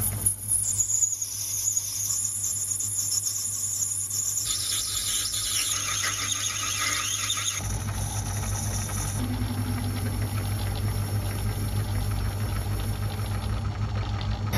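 Metal lathe turning a brass bar down with a cutting tool: a high-pitched cutting noise over the steady hum of the running lathe. The cutting sound changes abruptly about halfway through.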